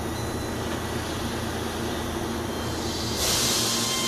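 Keihan 3000-series electric train moving through an underground station with a steady low rumble. About three seconds in, a sudden loud hiss of air comes in on top of it.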